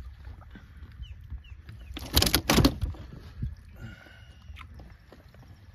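Two or three sharp knocks about two seconds in, over faint wind and water noise, as a fishing line is hauled in by hand over the side of a small boat.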